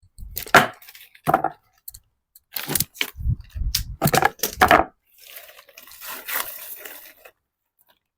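Chilli pepper plant stems and leaves snapping, tearing and crunching in a quick run of sharp cracks as peppers are picked, then a softer rustle of leaves for a couple of seconds.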